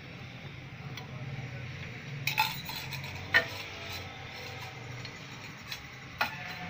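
Cooking oil poured from a steel tumbler into a hot nonstick frying pan, with three sharp metal clinks of kitchenware, the loudest about halfway through, over a steady low hum.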